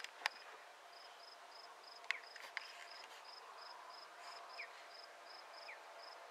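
Insect chirping steadily outdoors: faint, short high chirps repeating about three times a second. A few sharp clicks sound in the first three seconds.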